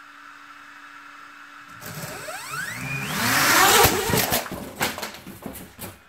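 Parrot Anafi drone's motors and propellers spinning up for a hand launch. A faint steady hum gives way, about two seconds in, to a loud rush of propeller noise with whines rising steeply in pitch, followed by a run of sharp clicks and knocks.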